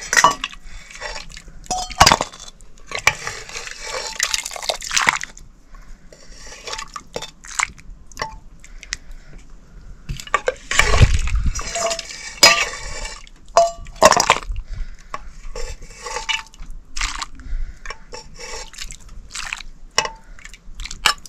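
Metal pots and utensils knocking, clinking and scraping, with water splashing and dripping. There are several short ringing clinks and a heavy thump about eleven seconds in.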